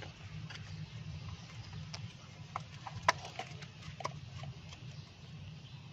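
Light plastic clicks and taps as a distributor's ignition-coil cover is handled and pressed into place, with one sharper click about three seconds in. A steady low hum runs underneath.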